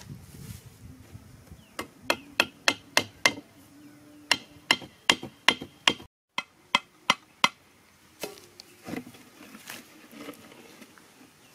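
Runs of sharp knocks, about three a second in groups of five or six, as a wooden stake is hammered into hard ground. Fainter scattered knocks follow.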